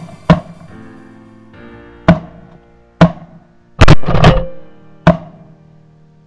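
Background music with a steady instrumental bed, broken by several sharp, loud bangs at uneven intervals. The loudest is a close pair about four seconds in, with a long decay.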